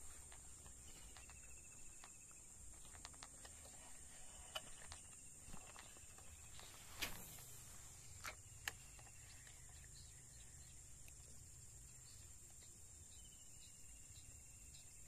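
Faint steady high-pitched drone of insects, with a few soft clicks scattered through the middle and one short falling swish about seven seconds in.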